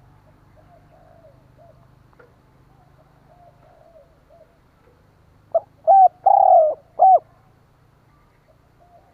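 Spotted dove (tekukur) cooing. Soft, repeated coos for the first few seconds, then about five and a half seconds in a loud coo phrase: short notes, one longer drawn-out note that falls slightly, and a closing short note.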